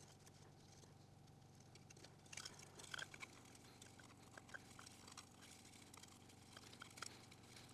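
Faint rustling and a few light clicks of string being wound by hand onto a 3D-printed plastic drum, over a low steady hum.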